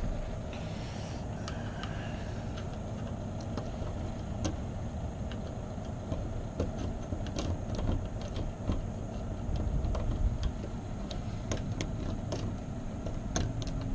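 Scattered light metallic clicks and ticks of lock picks working a stubborn lock that won't open, over a steady low rumble.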